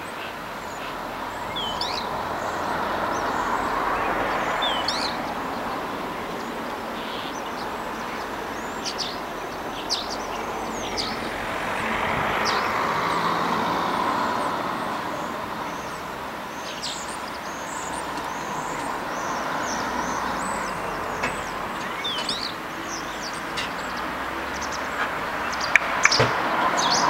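Outdoor ambience: a rushing noise that slowly swells and fades several times, with many short, high bird chirps over it, and a few sharp clicks near the end.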